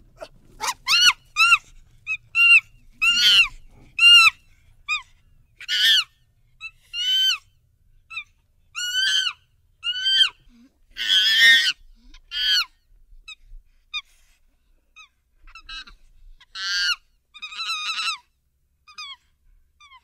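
Chimpanzee calling: a series of short, high-pitched calls, each rising then falling in pitch, coming about one or two a second, with a longer, harsh scream about halfway through.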